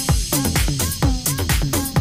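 Upbeat electronic dance music with a steady, regular beat.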